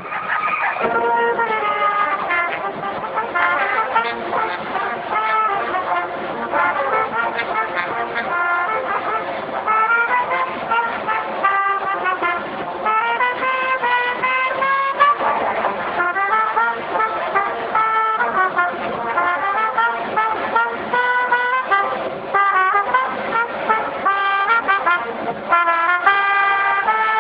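School pep band's brass, with trombones, sousaphone and trumpets, playing an up-tempo tune with quickly changing notes, no break anywhere.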